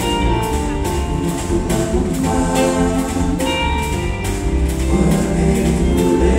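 Live band playing an up-tempo jazz number: drum kit, electric guitar, bass guitar and keyboard, with a steady beat of high percussion strokes about three times a second.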